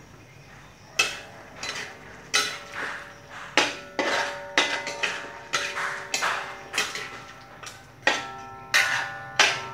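A metal spatula scraping and clanking against a large metal wok while duck meat is stir-fried, each stroke leaving a short metallic ring. The knocks start about a second in and come irregularly, one or two a second, with a brief pause near the end.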